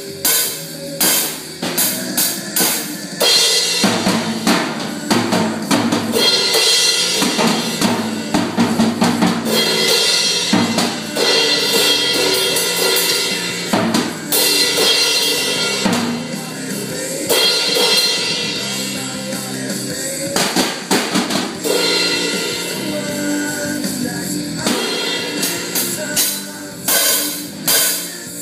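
A drum kit played by a child, with snare, bass drum and cymbal hits throughout, along with a recorded rock song.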